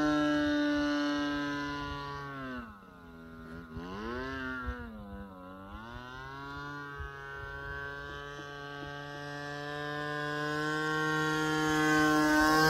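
Single-cylinder two-stroke gasoline engine and propeller of an RC model airplane in flight, running at a steady pitch. A couple of seconds in the pitch drops and wavers down and up for a few seconds before settling back. The sound grows louder near the end as the plane comes closer.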